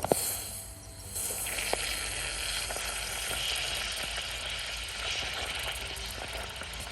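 A Zippo Typhoon storm match struck with a sharp scrape right at the start, then hissing and sizzling steadily from about a second in as it burns on the surface of water.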